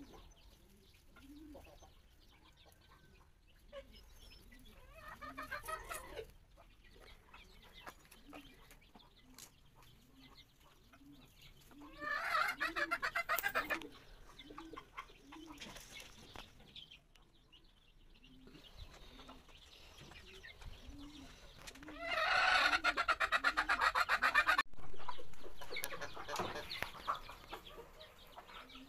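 Chickens clucking: a steady run of short, low clucks, one or two a second, broken twice by a loud, harsh, rapidly pulsing call, about twelve seconds in and again about twenty-two seconds in.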